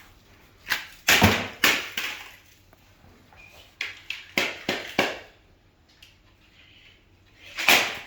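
A 3D-printed plastic figure being smashed: a string of about nine hard knocks and cracks, irregularly spaced, with a quiet stretch in the middle and one last knock near the end.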